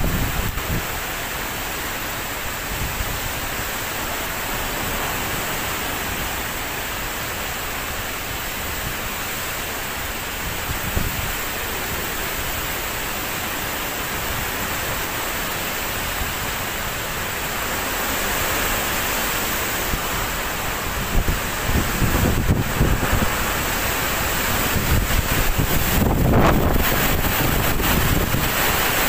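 Typhoon-force wind and heavy rain: a steady rushing hiss, with gusts buffeting the microphone that come more often and louder in the last third.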